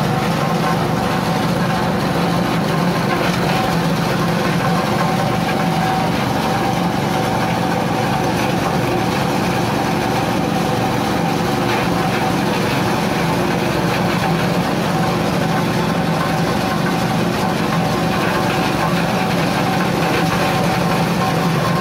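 Small petrol engine driving a coconut-husk shredder, running steadily while the machine grinds husk into coir fiber.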